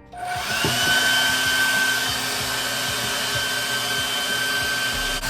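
Hair dryer switched on just after the start, its motor spinning up with a briefly rising whine, then blowing steadily at full speed.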